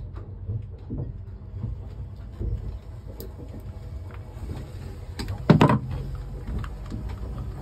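Hands working wire ends and a crimp-on butt connector: soft clicks and rustles, with one louder clatter about five and a half seconds in, over a steady low hum.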